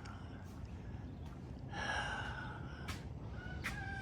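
A rooster crowing about two seconds in over a steady background, followed by a couple of sharp clicks near the end.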